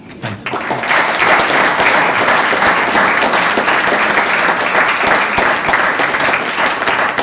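Audience applauding, building up over the first second and then sustained.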